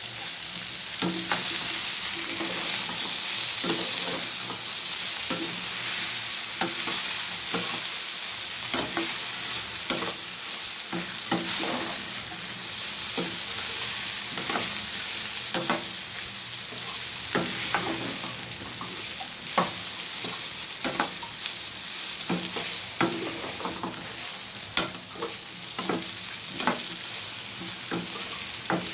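Ivy gourd (kovakkai) pieces sizzling in hot oil in a pan as they are stir-fried, with a spatula scraping and knocking against the pan at irregular moments.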